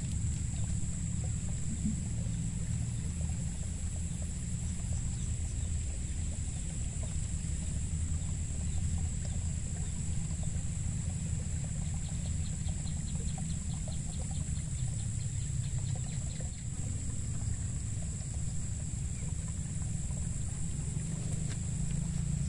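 A steady, high-pitched chirring of insects over a low, steady rumble, with a short run of quick, even ticks about twelve seconds in.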